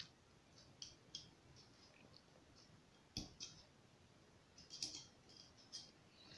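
Faint, scattered clicks of metal parts on a black-powder percussion revolver as its spring is worked out of the frame during disassembly, the sharpest click about three seconds in.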